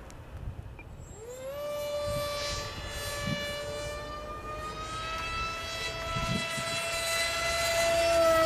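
Eachine Micro Skyhunter RC plane's brushless electric motor and propeller whining in flight. The high whine comes in about a second in, then its pitch creeps slowly higher as it grows louder.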